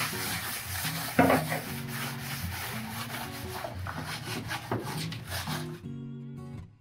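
A sponge scrubbing a wet plastic produce crate, a run of quick rubbing strokes against the plastic. The scrubbing stops near the end, leaving soft acoustic guitar music.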